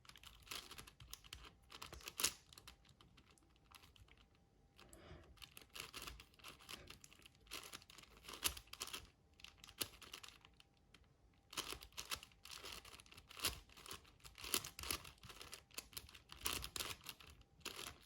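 A 6x6 Rubik's cube being turned by hand: quick runs of plastic layer clicks and clacks, with two short lulls between move sequences, during a long algorithm to solve the last edge.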